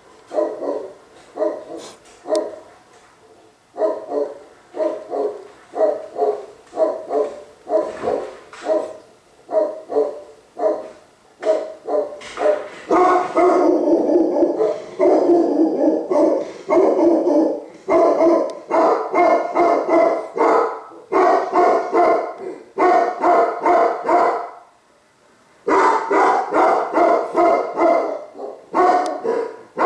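Tibetan Mastiff barking repeatedly, about two barks a second at first, then a louder, faster run of barking from about twelve seconds in, with a short break about 25 seconds in before the barking resumes.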